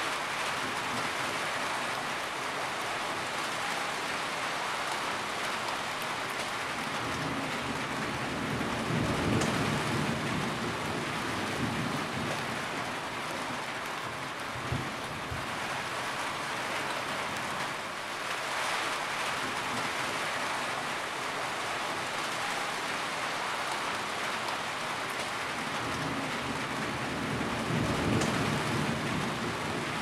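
Heavy rain drumming steadily on a corrugated roof and splashing off the eaves. A deeper rumble swells twice, about a third of the way in and near the end.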